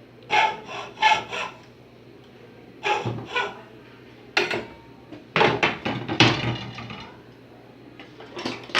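Hammer striking wood in irregular blows, with a quick run of several blows around the middle, over a faint steady low hum.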